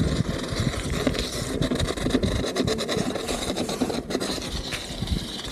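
Mountain bike tyres rolling over a rough asphalt path, with rattling and a gusty wind rumble on the action camera's microphone.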